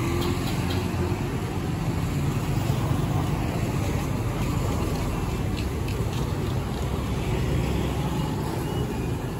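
Street traffic: a steady low rumble of car and motorbike engines, with a few faint clicks over it.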